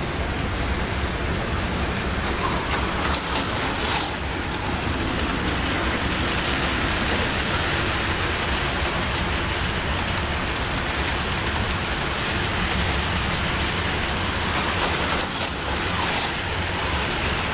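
HO scale model passenger train running past, a steady rumbling clatter of its wheels on the rails, with slot cars whizzing by about four seconds in and again near the end.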